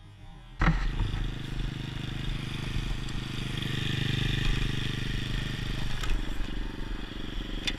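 Pit bike engine running steadily. It cuts in abruptly about half a second in and swells a little around the middle.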